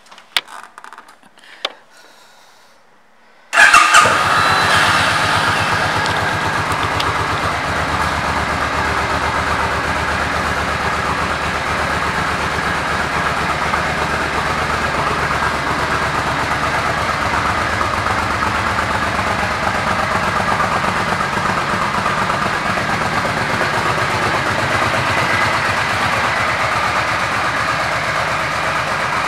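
2003 Suzuki Intruder Volusia's 805 cc V-twin engine. After a few faint clicks it starts about three and a half seconds in with a brief loud burst, then settles into a steady idle.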